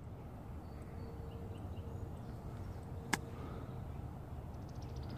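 A sand wedge strikes a golf ball on a short chip shot: one sharp click about three seconds in, over a steady low rumble.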